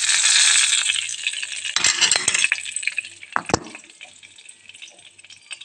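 Whole spices (dried red chilli, black peppercorns, cumin) sizzling in hot oil in a pot as the tempering fries. The sizzle starts loud and suddenly, fades after about two seconds, with a few sharp knocks around the second and third seconds.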